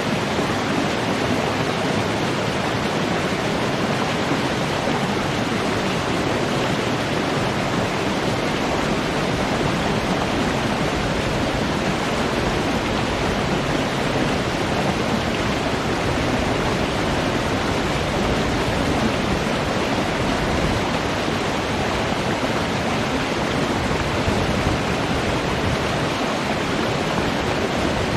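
Water flowing steadily, a continuous rush with no breaks or changes.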